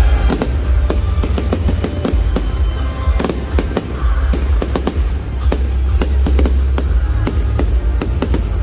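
Fireworks display going off in quick succession: many sharp bangs and crackles over a constant low rumble, with music playing along.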